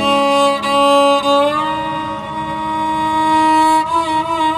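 A bowed string instrument plays a slow melody of long held notes over a steady low drone. It slides up into a new note about a second and a half in and wavers with vibrato near the end.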